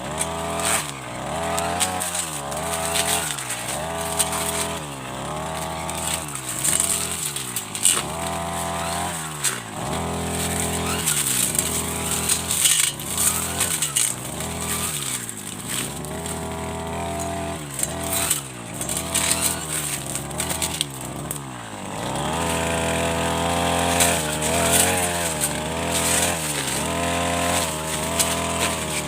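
Two-stroke brush cutter engine revving up and dropping back over and over, about every one to two seconds, as its blade cuts through senduduk shrubs.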